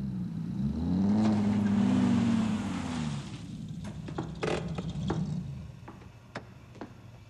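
A car engine revs and drives past, its pitch rising and then falling over about three seconds, followed by a few short knocks and clicks.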